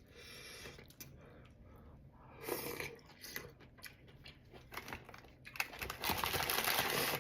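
Eating close to the microphone: chewing and crunching on food, with scattered small clicks and a dense crackling run of about a second and a half near the end.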